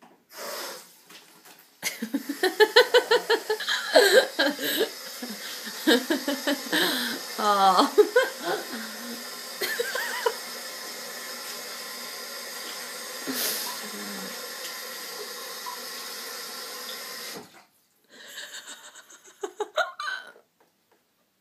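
A person laughing in rhythmic bursts for several seconds, then a kitchen tap running steadily for several seconds before it is turned off suddenly.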